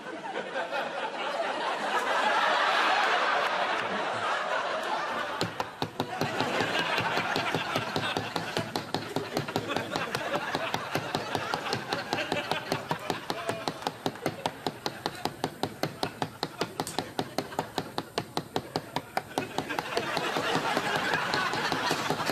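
People laughing during an outtake. From about five seconds in, an even run of sharp clicks or knocks, roughly three a second, goes on under the laughter.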